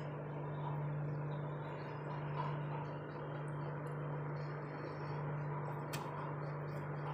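Steady low hum of a freezer running, with one faint click near the end as the plastic tub is handled.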